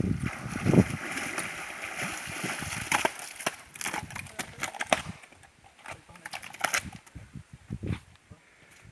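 Water splashing and sloshing with sharp knocks and clicks for about five seconds, then quieter with a few scattered knocks.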